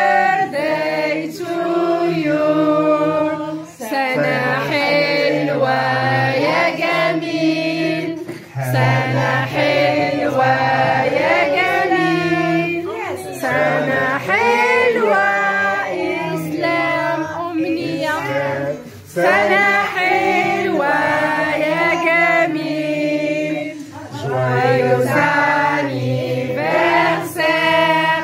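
Group singing, women's and children's voices, over a steady low accompaniment, with short breaks between phrases.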